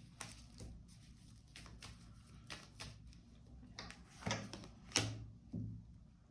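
Tarot cards being handled and laid down on a table: a run of light clicks and taps, with a few louder snaps about four and five seconds in.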